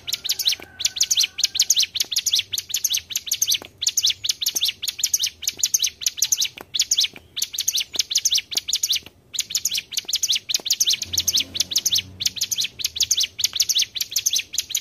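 Ciblek gunung (mountain prinia) song: fast, long rolling runs of high, sharp notes repeated many times a second, broken by a few brief pauses.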